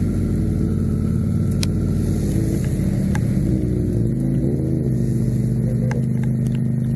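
Motorcycle engine running steadily under way, its note shifting about four seconds in, with the hiss of rain and wind over it.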